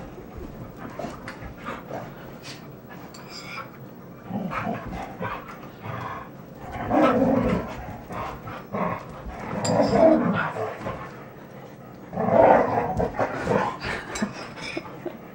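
Standard poodles play-wrestling, growling in three louder stretches, with panting and scuffling in between.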